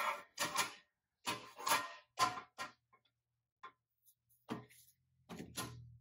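Handling noises on a metal workbench: a pressed-steel toy truck body is set down with a short scrape, followed by several sharp knocks and clinks as metal blocks are handled and laid on the bench.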